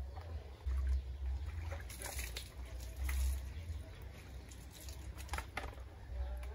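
Water splashing as it is scooped and poured with a plastic dipper from a bucket while bathing and washing hair, in a few brief splashes about two, three and five and a half seconds in, over a low rumble.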